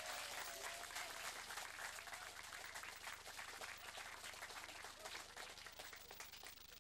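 Audience of students applauding, dense clapping that thins out and fades over the last couple of seconds.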